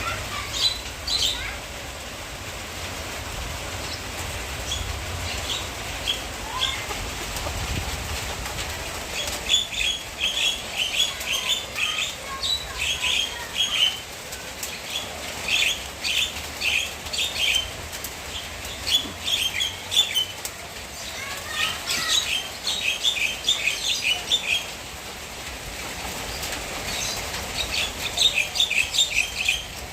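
Small birds chirping in quick runs of short, high notes, coming in bursts separated by pauses.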